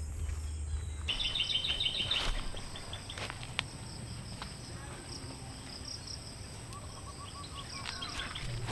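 Rural outdoor ambience: a steady high-pitched insect drone with bird calls, first a quick run of chirps about a second in, then a short series of repeated notes near the end.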